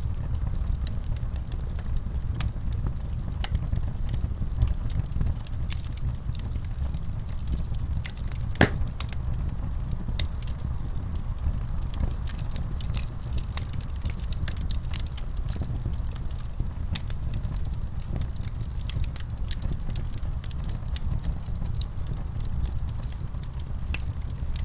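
Wood fire burning in a fireplace: a steady low rumble of flame with frequent small crackles and snaps, one louder pop near the middle.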